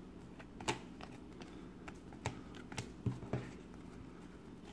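Trading cards being thumbed through by hand, with about five sharp clicks as the stiff cards snap against each other.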